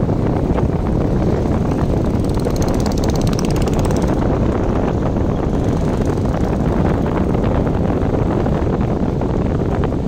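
Steady wind buffeting the microphone, a loud low rumble.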